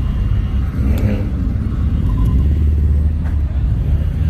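Car engine and exhaust rumble close by, steady and loud, with a deeper low drone setting in about two seconds in.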